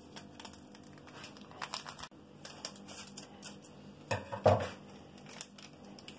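Small foil sachet of dry yeast crinkling as it is handled and cut open with scissors, with a louder rustle and snip about four seconds in.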